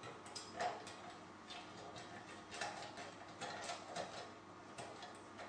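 A nut and bolt being fitted by hand through the feed-arm bracket of a satellite dish: light, irregular clicks and scrapes of metal parts being handled, about ten small ticks spread unevenly.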